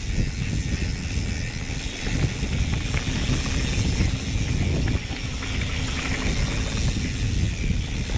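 Mountain bike riding a dirt trail: an uneven low rumble of tyres and air on the microphone, with scattered rattles and clicks from the bike.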